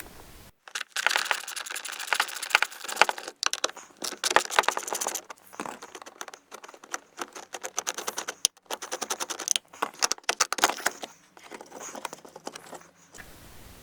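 Allen key undoing small screws on a plastic car window-switch panel, with hands handling the plastic trim: many quick, irregular light clicks and scrapes with short pauses.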